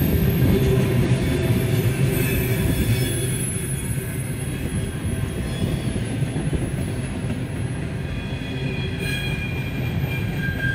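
Freight train rolling past with a steady low rumble from the locomotives and cars, and faint high wheel squeal that comes and goes, strongest near the end.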